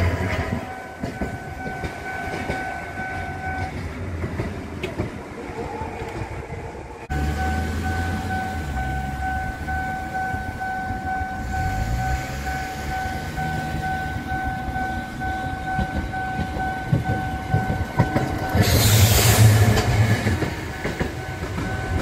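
Japanese level crossing warning bell ringing steadily while Kagoshima City streetcars run over the crossing with a low rumble and wheel clatter on the rails. The bell stops a few seconds in and starts again. Near the end a tram passes close by with a loud rush of wheel and running noise.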